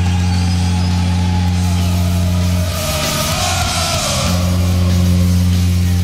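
Hockey arena goal horn blowing one deep, steady tone over a cheering crowd. Around the middle the horn breaks off for about a second and a half, while a wavering higher tone and a louder swell of crowd noise come through, then it sounds again.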